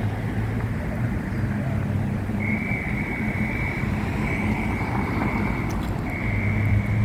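Outdoor city ambience: a steady low rumble of vehicle traffic with wind on the microphone. A steady high-pitched tone joins about two and a half seconds in, dropping out briefly twice.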